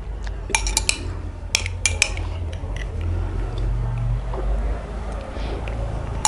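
A spoon clinking and scraping against a small drinking glass as a garlic and honey mixture is scooped out. There are several sharp clinks in the first two seconds and fewer after, over a low steady hum.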